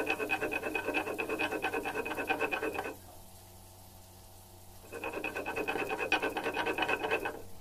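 A stone roller grinding wet spice paste back and forth on a flat stone slab (shil-nora): dense, rhythmic stone-on-stone scraping. It breaks off for about two seconds near the middle, then resumes.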